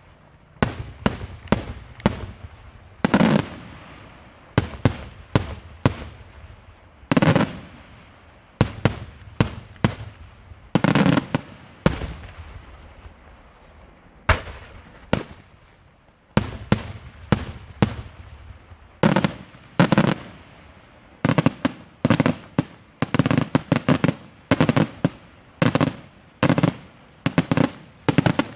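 Daylight fireworks display: a long run of loud sharp bangs at uneven spacing, a few drawn out into longer rolling reports. The bangs come faster and closer together over the last several seconds.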